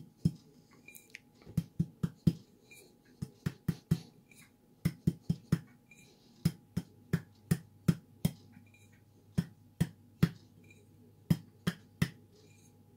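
Palm tapping the bottom of a large glass jar packed with shredded tobacco, a string of sharp knocks in quick runs of four to seven with short pauses between. The tapping settles and compacts the tobacco in the jar.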